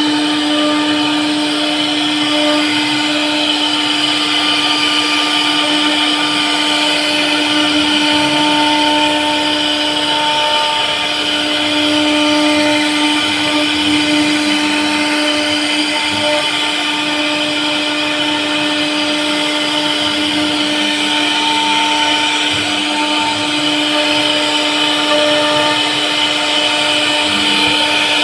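CNC router spindle running at a steady high speed while carving wood, a constant whine over cutting noise.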